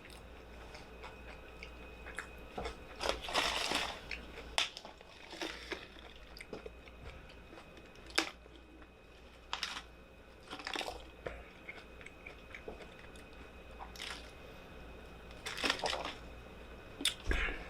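Eating from a Chipotle burrito bowl: chewing, with short crunches and clicks at irregular intervals, the biggest cluster about three to four seconds in.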